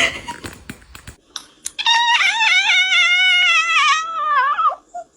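A cat giving one long, wavering yowl that starts about two seconds in and falls in pitch as it ends, after a few light clicks and knocks.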